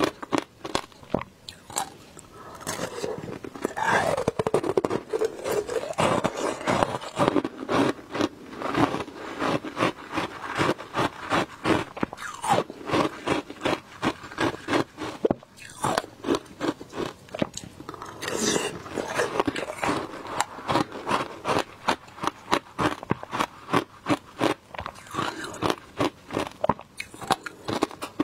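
Close-up biting and chewing of ice in passion fruit juice: dense, rapid crisp crunches and cracks, with no pause.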